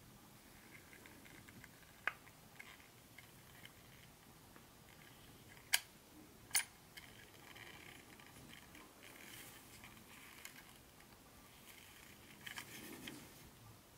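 Faint handling noise: light rustling, with a sharp click about two seconds in and two louder clicks close together near the middle, then a brief burst of rustling near the end.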